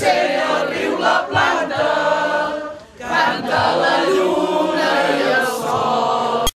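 A small group of women singing together in unison without accompaniment. Two long held phrases are split by a short breath pause about three seconds in, and the sound cuts off abruptly just before the end.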